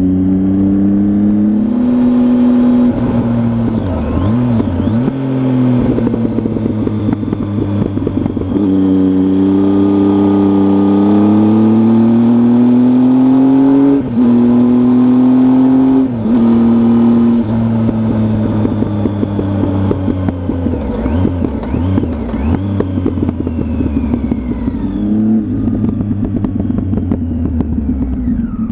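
Triumph Tiger motorcycle engine running under way, its pitch climbing and dropping back several times as the throttle and gears change, with short breaks in the sound partway through.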